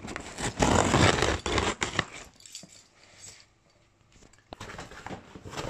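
Packing tape on a cardboard box being slit and torn open with a small hand tool: a loud scraping rip from about half a second in lasting about a second and a half, then a pause, and more scraping and tearing near the end.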